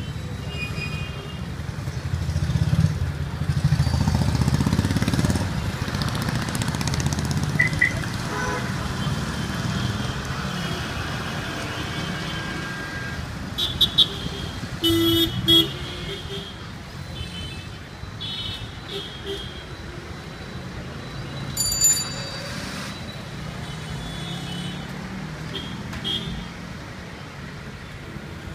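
Busy road traffic: engines running and vehicles passing, with short car-horn toots several times around the middle. The engine rumble is heaviest a few seconds in.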